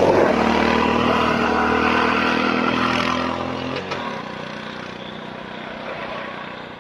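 Bajaj RE auto-rickshaw's single-cylinder four-stroke engine running hard at a steady pitch, then easing off sharply about four seconds in and carrying on much quieter.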